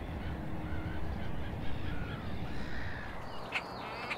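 Wild waterbirds calling: harsh, crow-like calls, then a quick run of short high calls in the last second, over a low rumble.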